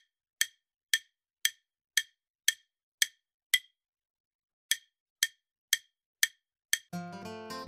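Quiz countdown timer ticking: sharp wood-block-like clicks about twice a second, with one pause of about a second past the middle. Near the end a strummed chord of music begins as the countdown runs out.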